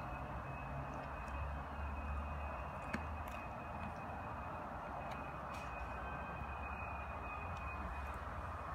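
Steady outdoor background noise: a low rumble and hiss with a faint, thin, high steady tone, and one short click about three seconds in.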